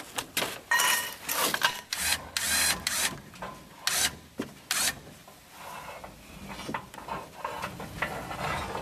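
Heavy wood and lifting chain scraping and rattling on a pickup's bed, in irregular short bursts over the first five seconds, then quieter.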